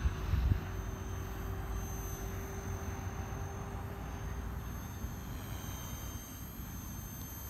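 Electric Blade 230S RC helicopter flying at a distance: a steady high whine from its brushless motor and rotor head, wavering slightly in pitch about six seconds in. Wind rumbles on the microphone, strongest at the start.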